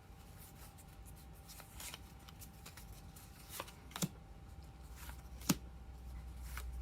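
Pokémon trading cards being handled: soft card rustling with a few sharp flicks and snaps, the loudest about four seconds in and again about five and a half seconds in.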